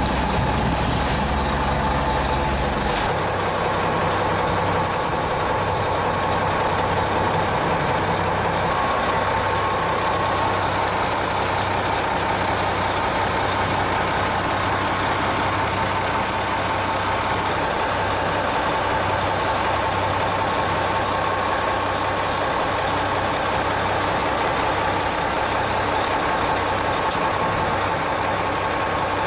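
Truck engine idling steadily, with a heavier low rumble for the first three seconds.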